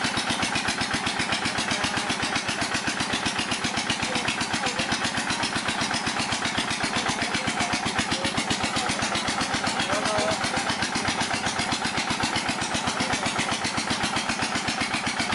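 Diesel engine running steadily with a fast, even beat, driving the water pump that jets water down the well pipe to drill the hole.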